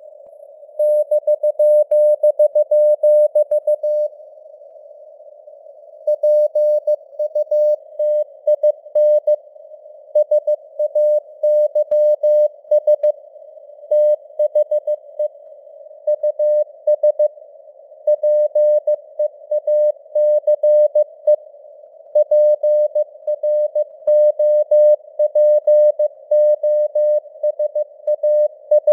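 Morse code (CW) sent at 15 words per minute: a single steady beep tone keyed in dots and dashes over a narrow band of simulated radio hiss. There is a pause of about two seconds about four seconds in.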